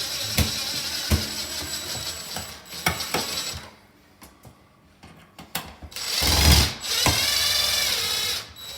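A tool's ratcheting mechanism whirring with a rapid rattle in two spells: one lasts about three and a half seconds and the second starts about six seconds in. Scattered clicks fall between them, where the tool is worked on the light fixture being installed.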